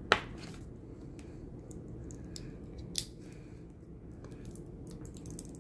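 Rubber strap of a Disney MagicBand being cut and pried open by hand: a sharp snap right at the start and another about three seconds in, with small clicks and rustling of the strap between.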